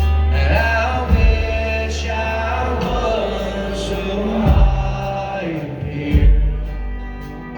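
Live acoustic band music in a break between sung lines, with a steady bass under a melodic line that bends and glides.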